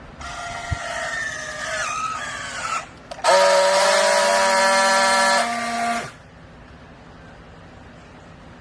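A machine whine falling in pitch, then a loud, steady, horn-like tone that starts abruptly about three seconds in and cuts off sharply nearly three seconds later.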